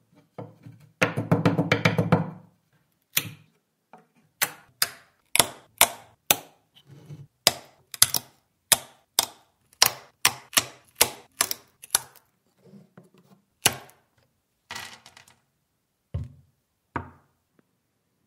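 Wooden plugs snapping off at their base one after another as a flat-bladed tool levers each out of its plug-cutter ring in a wooden block: about twenty sharp cracks, roughly two a second. A short clattering burst comes about a second in.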